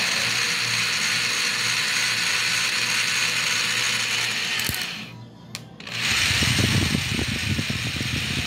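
Electric drill running as its twist bit bores into a hard seed held in the hand. The drill stops for about a second near the five-second mark, then starts again with a rougher, grinding sound as the bit cuts in.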